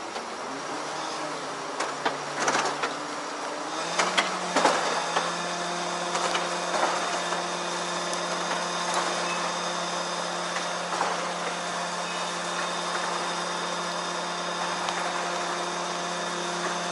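Truck-mounted ladder lift's engine and hydraulic winch running steadily as the loaded platform is hauled up the ladder. The hum steps up in pitch about four seconds in as the lift takes the load. A few knocks and clatters come in the first few seconds.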